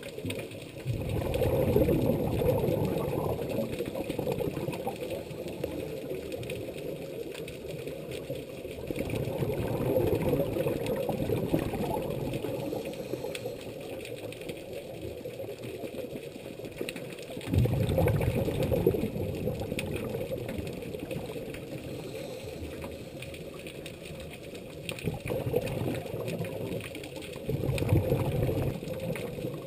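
Scuba regulator exhalations heard underwater: bubbling, rumbling bursts of a diver breathing out, recurring several times about every seven or eight seconds between quieter inhalations.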